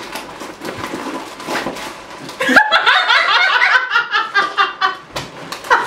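Soft rustling of a canvas tote bag with a few light clicks. About halfway in, two women burst into loud, high-pitched laughter.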